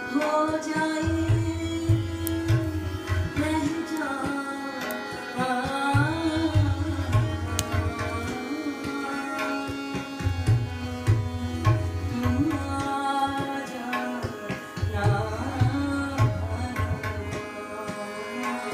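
Hindustani devotional song (bhajan) in Raag Bhairavi, a voice singing over tabla accompaniment with a steady held low note beneath.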